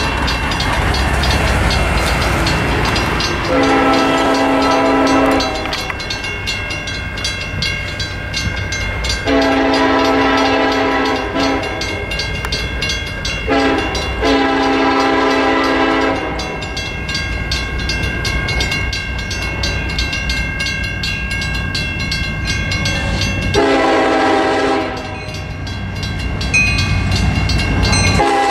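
A lead Union Pacific diesel locomotive's horn sounds the grade-crossing signal, two long blasts, a short one and a long one, then another short blast later, over the low rumble of a seven-locomotive consist pulling a loaded rock train. A crossing bell rings throughout.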